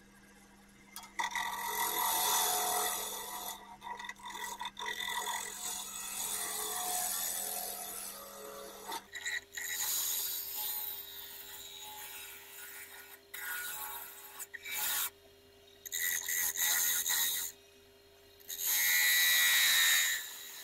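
A half-inch bowl gouge cutting into spinning ash on a wood lathe: a hissing, scraping cut in passes broken by short pauses, over the lathe's steady motor hum. The recording is sped up, so the hum jumps higher about nine seconds in.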